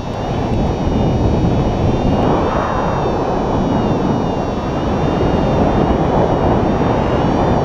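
Airflow buffeting the microphone of a paraglider's body-mounted camera in flight: a steady, loud wind rumble.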